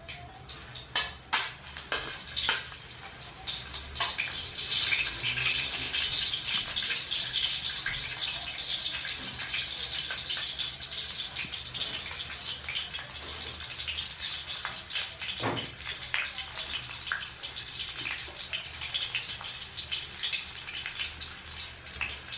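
Hot oil sizzling and crackling in a wok with frying garlic cloves. A few sharp clicks come first, and the sizzle grows into a steady hiss about four seconds in.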